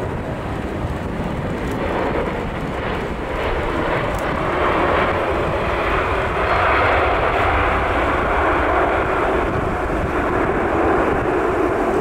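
Jet engines of a Boeing 747-8 freighter (four GE GEnx engines) during landing and rollout. The steady jet rumble grows louder about four to five seconds in and holds.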